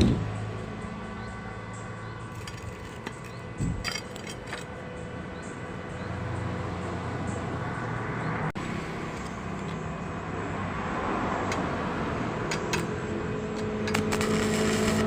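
A motor running with a steady low hum that grows louder near the end, with a few sharp metallic clicks near the start.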